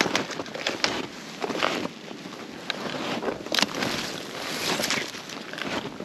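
Snowshoe footsteps crunching in fresh snow, about one step a second, with a sharper click just past halfway.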